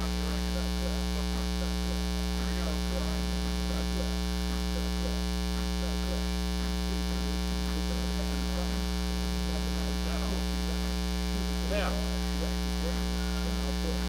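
Steady 60 Hz mains hum with a buzzy ladder of harmonics. It is a ground-loop noise induced into the recording by the camera being powered from its AC adapter.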